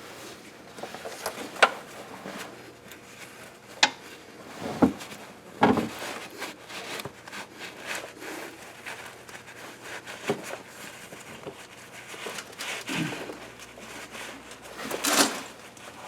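Scattered clicks, knocks and rubbing from hand tools and engine parts being handled, with a short, louder hissy burst near the end.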